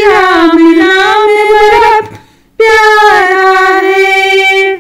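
A woman singing a Hindi devotional bhajan without accompaniment: a sung phrase, a short breath about two seconds in, then a long held note.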